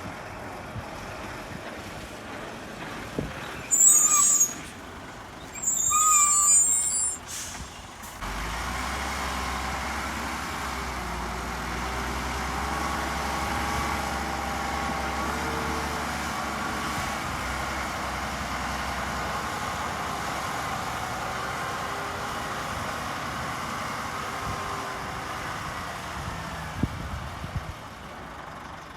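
Dump truck air brakes hiss loudly twice, a couple of seconds apart. Then a heavy diesel engine runs steadily for most of the rest, easing off near the end.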